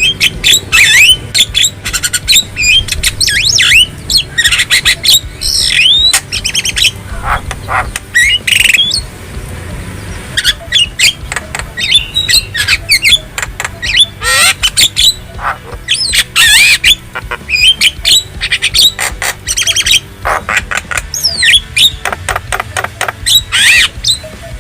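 Javan myna (jalak kebo) calling: a fast, varied run of whistles, chirps and harsh squawks, broken by short pauses.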